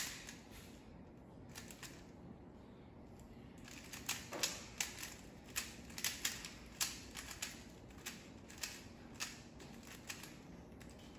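A 3x3 Rubik's cube being turned by hand: irregular sharp plastic clicks as the layers snap round. There are a few scattered clicks at first, then a quick run of them through the middle.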